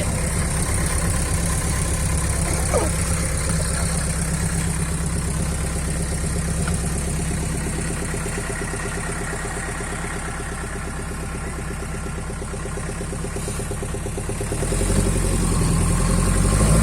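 An engine running steadily, its low pulsing even throughout, growing louder and deeper about fifteen seconds in.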